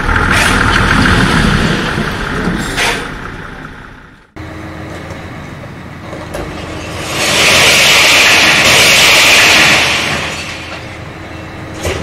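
Dump truck engines running in two clips. In the first, dirt drops into the steel bed with a couple of knocks. After a cut, a truck tips its load, and a loud hiss lasts about three seconds in the middle.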